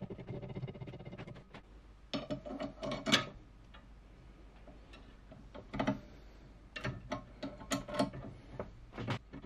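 Small steel parts clinking and clicking as a washer and nut are fitted by hand onto the pivot bolt of a steel lever, in scattered clusters of sharp taps. The loudest clink comes about three seconds in.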